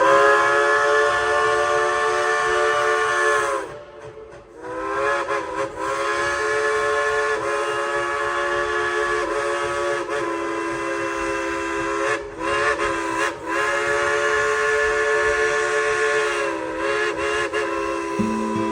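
Steam locomotive's chime whistle blowing a chord of several steady tones in long blasts. The first blast breaks off about four seconds in, and a second long blast follows with a couple of brief dips. It ends in shorter toots near the end.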